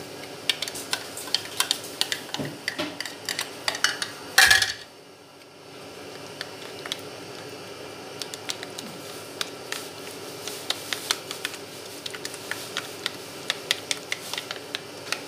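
A plastic spoon stirring thick garlic mayonnaise in a clear container, clicking and scraping against the sides over and over. One louder clatter comes about four and a half seconds in.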